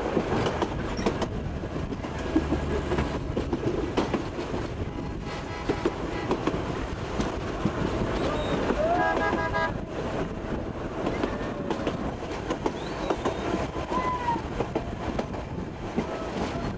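A steam-hauled train running along the track, the coach's wheels clicking and rattling steadily over the rails. About nine seconds in, the steam locomotive's whistle gives one short blast of about a second, several tones together.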